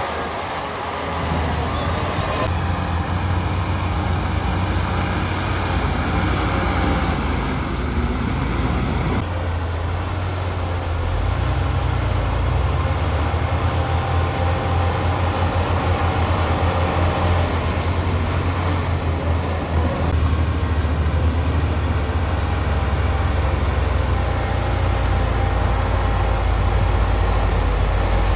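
Heavy diesel engine of a Shantui crawler bulldozer running hard while it works, a steady deep drone that grows louder about two seconds in and shifts in note a few times.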